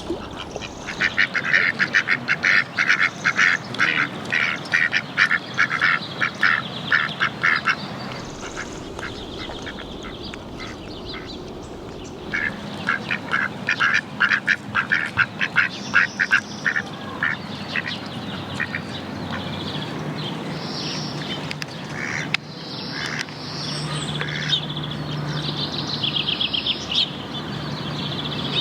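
Ducks quacking in two long, rapid runs of calls, with higher bird chirps scattered through the last third.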